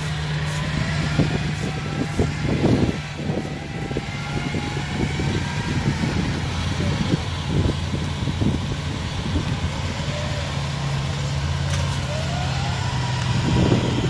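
Engine of a loaded rice-hauling carrier (cộ lúa) running steadily as it drives across the harvested paddy, with scattered short knocks from the machine. The engine note drops a little about ten seconds in.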